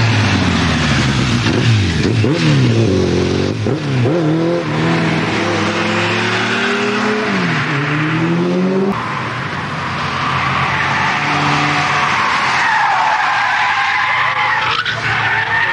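A sport motorcycle's engine revs hard as it passes, its pitch climbing and dropping several times with gear changes over the first half. Then a car's tyres squeal as it slides through the bend, the squeal rising and falling for several seconds near the end.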